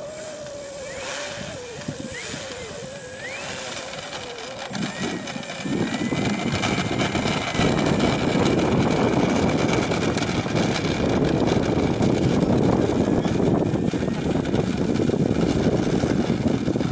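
Electric motor and propeller of a Carbon Z Cessna 150 radio-controlled plane whining at low throttle while it taxis, the pitch wavering. About six seconds in, a louder steady rushing noise takes over.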